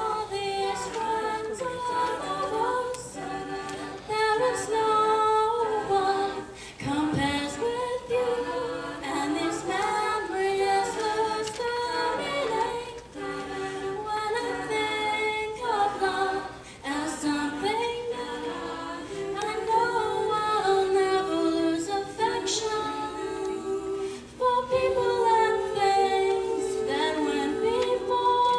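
A small choir of young women singing together in several parts, with one voice carried by a handheld microphone.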